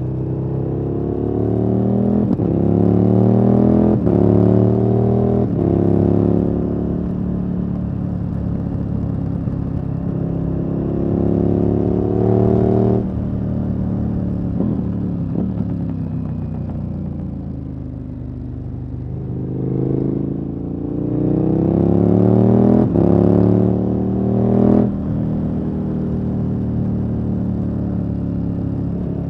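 KTM 1290 Super Adventure S's V-twin engine, through an aftermarket exhaust, pulls hard through the gears. The pitch climbs and drops back in quick steps at each upshift, with short sharp cracks at the shifts. About halfway through the throttle closes and the engine winds down, then it accelerates through several more upshifts before settling to steady running near the end.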